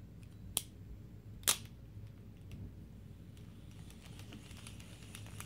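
Lew's Mach 2 spinning reel being handled: two sharp clicks, about half a second and a second and a half in, then a run of faint quick ticks near the end.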